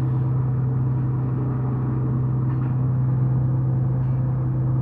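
Tree-cutting machinery's engine running at a steady, constant speed, a loud unchanging hum.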